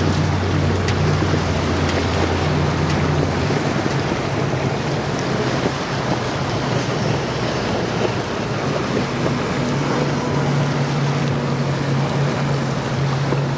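Contender center-console boat's outboard engines running at speed, with a steady low hum under the rush of water and spray from the hull and wake.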